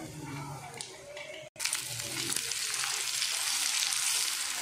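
Sesame lachha paratha frying in ghee on a tawa griddle: a steady sizzle that cuts in loudly about a second and a half in, after a quieter stretch and a brief gap.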